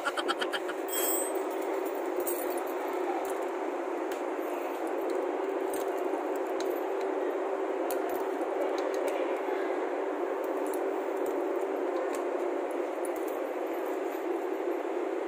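Light metallic clinks of bolts and a small hand tool as a mountain bike's stem bolts are worked on, scattered irregularly over a steady hum.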